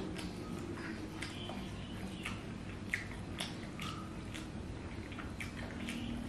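Close-miked eating by hand: wet smacking chews and squelches of rice and curry, coming as irregular short clicks several times a second.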